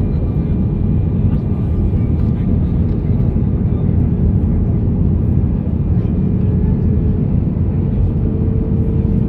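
Steady cabin noise of a jet airliner in flight, heard from a window seat over the wing: engines and rushing air making an even low rumble with a faint steady hum above it.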